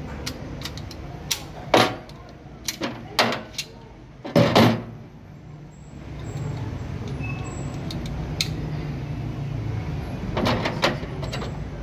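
Metal clicks and clacks of a rusty 1911 .45 pistol being taken apart by hand, as the slide, recoil spring and guide rod come off the frame. The parts knock against a plastic tray, with the loudest clatter about four seconds in. A low steady hum runs under the second half.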